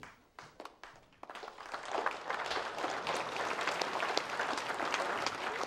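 Banquet guests applauding: a few scattered claps at first, building within about two seconds into steady applause from a large crowd.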